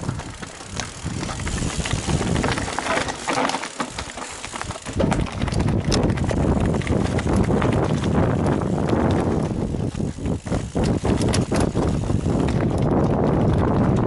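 Mountain bike riding over a rough dirt and rock trail: tyre noise with a steady run of rattles and knocks from the bike, louder from about five seconds in.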